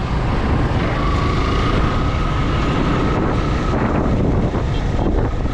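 Wind noise on the microphone over motorcycle engine and road noise while riding, steady and loud. A faint steady whine runs for a few seconds from about a second in.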